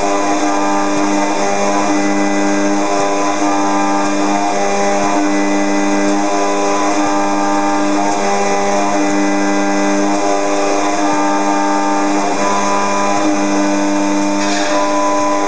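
Robot-held FIMEC high-speed spindle milling aluminium: a loud, steady whine of several tones over a hiss of cutting, with a brief rise in the hiss near the end.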